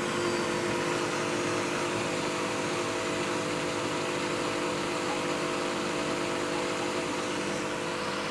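Front-loading washing machine running a wash cycle with its newly repaired dampers, a steady mechanical hum with a whirring noise and no knocks.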